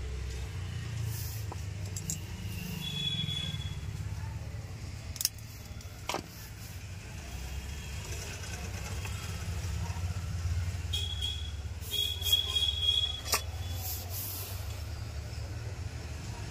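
Steady low rumble of background traffic, with a few sharp clicks and taps as a circuit board and tools are handled on a workbench, and a few brief high squeaks.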